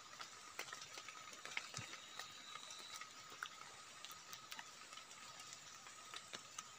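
Faint, scattered small ticks and crackles of hands picking at wild mushrooms and the soil around them, over a faint steady high hum.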